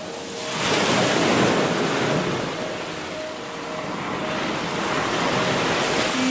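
Sea surf washing onto a sandy beach: a steady rushing of small breaking waves that swells about a second in, with faint held music notes underneath.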